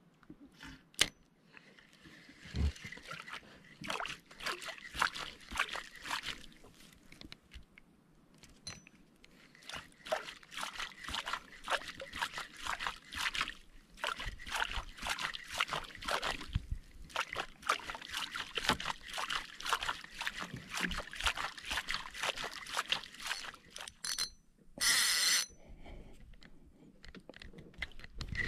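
Water sloshing and trickling against a small outrigger boat's hull, in dense, irregular little slaps and splashes, with a brief rush of splashing about 25 seconds in.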